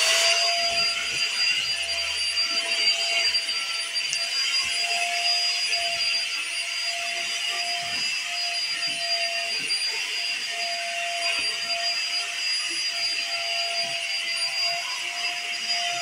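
Stick vacuum cleaner running steadily over a carpet rug, a high motor whine over a rush of air.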